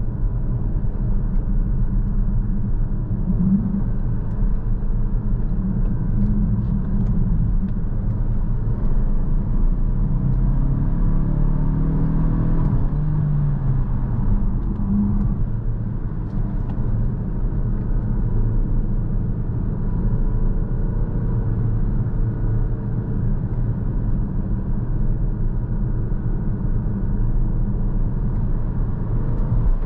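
Kia Stinger GT-Line 2.5T's turbocharged 2.5-litre four-cylinder engine and tyre and road noise, heard from inside the cabin while driving in Sport mode. The engine note climbs as the car accelerates about ten to thirteen seconds in, then settles to a steady drone.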